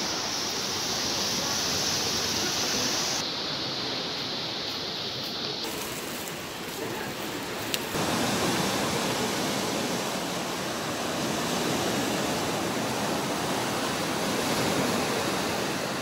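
Surf of a small storm on the Black Sea breaking on the beach and against concrete breakwaters: a steady rush of waves, its character changing abruptly about three and eight seconds in, with a brief click just before the second change.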